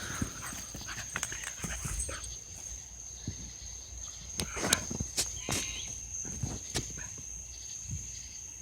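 Fireworks going off in irregular pops and cracks, with a dog barking at the explosions.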